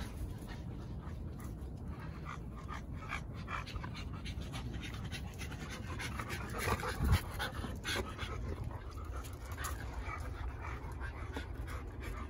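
A dog panting near the microphone in quick, even breaths, with a short knock about seven seconds in.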